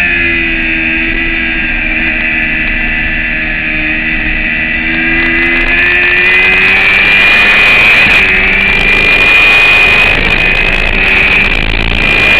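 Motorcycle engine running hard at high revs, heard from a camera mounted on the bike, with wind rush over it. The engine note sags slightly, then climbs again about five seconds in.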